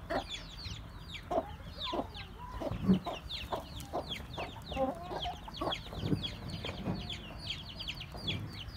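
Chickens clucking, over a steady chatter of short, high, falling chirps.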